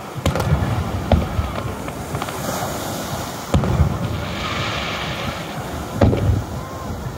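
Aerial fireworks shells bursting in a display: four loud booms, each trailing a low rumble, the first two about a second apart, then one in the middle and one near the end.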